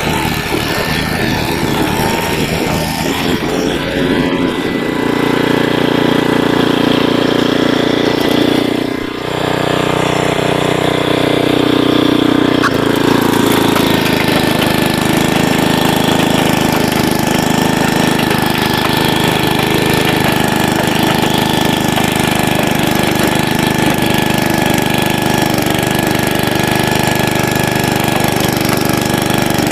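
A Troy-Bilt Horse rototiller's 8 hp Briggs & Stratton single-cylinder engine running under load while tilling garden soil. The engine note changes about five seconds in, and again near thirteen seconds, with a brief dip in loudness around nine seconds.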